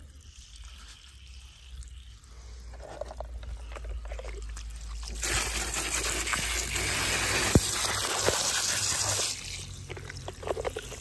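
A jet of water spraying onto a plastic toy tow truck in wet grass. It starts as a faint trickle, becomes a steady loud hiss of splashing water from about five seconds in, and drops back after about four seconds.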